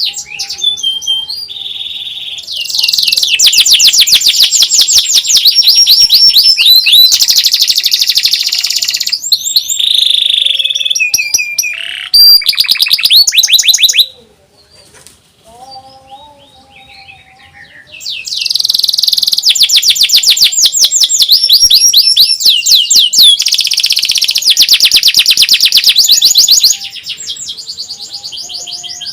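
Domestic canary singing loud, fast rolling trills of rapidly repeated high notes in long phrases, with a softer stretch of scattered notes about halfway through.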